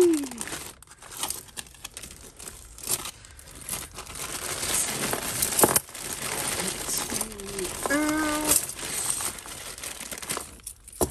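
A plastic bag of costume jewellery crinkling and rustling as it is rummaged through, loudest about halfway, with sharp clicks of bangles and metal pieces knocking together.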